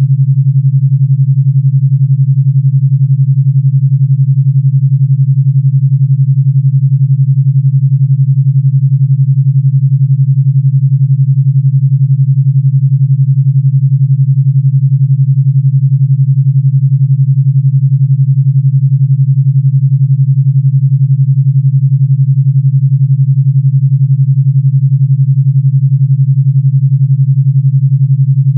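Steady low electronic pure tone at 141 Hz, with a rapid, even throb from its 11 Hz alpha-wave binaural beat.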